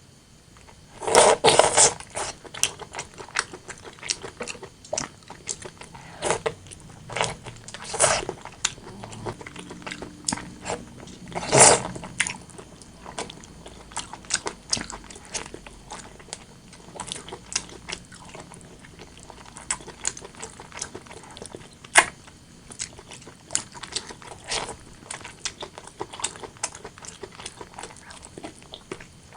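Close-miked eating sounds: chewing and biting of braised pork and rice, an irregular run of small wet clicks and crunches. A few louder bites stand out about a second in, around eight seconds and near twelve seconds.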